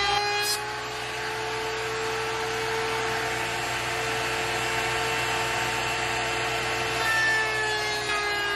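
Porter-Cable 690 router in a router table, running with a steady high whine as its bit cuts a round-over along the edge of a wooden panel, with the hiss of the cut over the motor's tone.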